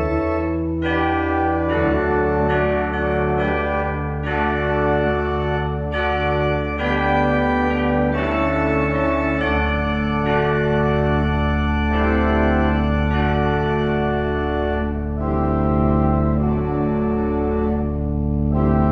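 Organ playing a slow prelude: sustained chords that change about once a second over a held low pedal note, with the bass note shifting about halfway through.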